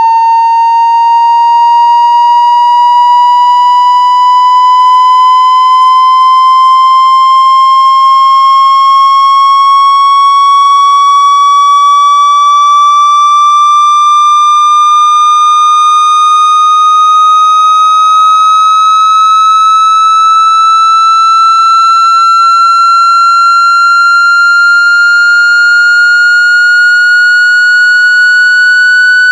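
A loud electronic tone slowly and steadily rising in pitch, a sweep played to shake water out of a phone speaker.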